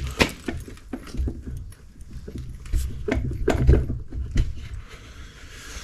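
Irregular metallic clunks and clicks of a torque converter being turned and pushed onto a transmission's input shaft, working its drive tangs into place in the pump.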